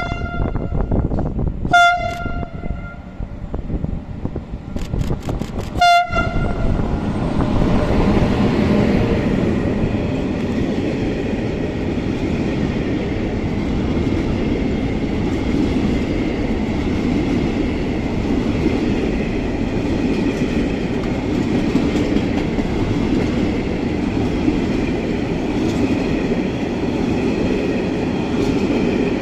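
Freight train horn sounding three short blasts in the first six seconds. Then a long intermodal freight train passes slowly and close by, its container wagons rolling past in a steady rumble.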